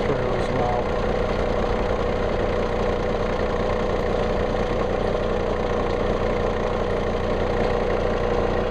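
Common-rail diesel engine idling steadily.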